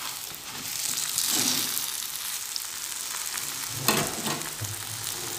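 Oil sizzling under a stuffed potato-and-cauliflower paratha frying on a griddle (tawa), a steady frying hiss, with a brief knock about four seconds in.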